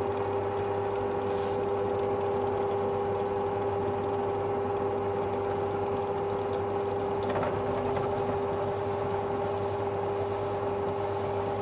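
Cheap Chinese-made benchtop drill press running steadily with an even motor hum, its twist drill boring into a plastic chainsaw starter handle. There is a brief scratchy cutting noise about seven seconds in.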